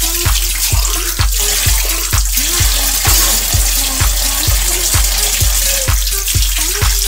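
Tap water running into a stainless steel kitchen sink as dishes are rinsed under it, over background music with a steady beat and a simple melody.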